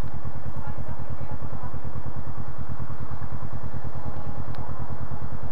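Kawasaki ER-6n's parallel-twin engine idling steadily, a fast even low pulse with no revving.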